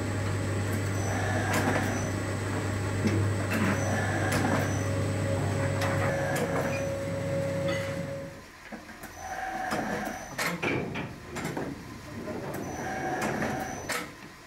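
Soap-making factory machinery running in a repeating mechanical cycle over a steady low hum. The hum cuts out about eight seconds in, leaving quieter irregular clicks and clatter.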